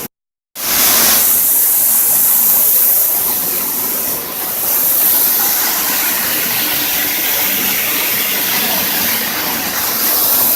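Steady rushing and splashing of water, as from a mini-golf course waterfall, starting just after a brief dropout at the start.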